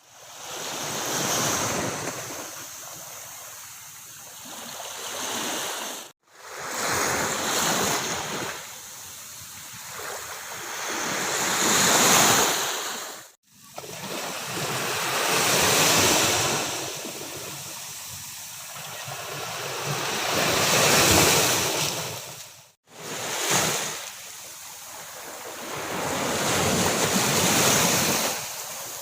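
Ocean surf on a beach: waves breaking and washing in, the rush swelling and ebbing every few seconds. The sound cuts out abruptly for a moment three times.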